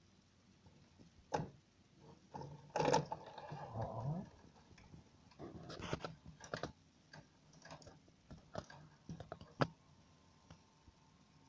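Sony SL-HF840D Betamax deck's transport mechanism loading a cassette: scattered clicks and clunks, with a short motor whir about three seconds in.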